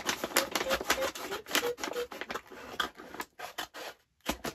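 Brown paper mailing bag being opened by hand: a dense run of crinkling, rustling and crackling paper, with a short lull near the end and one last crackle.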